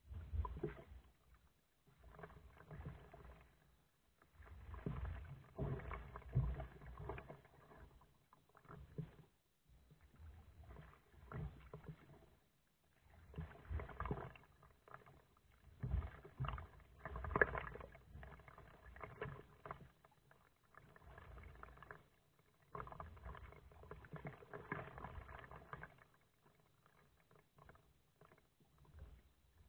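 Kayak paddle strokes in the water: splashing and dripping from the paddle blades, coming in uneven bursts every second or two, with a few sharper clicks.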